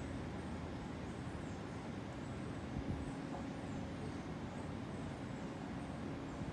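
Outdoor ambience: a steady low rumble, with faint high chirps repeating throughout and a single soft thump about three seconds in.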